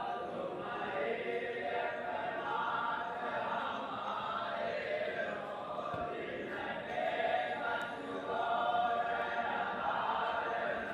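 Many voices singing together in a choir-like chant, held notes blending with no break.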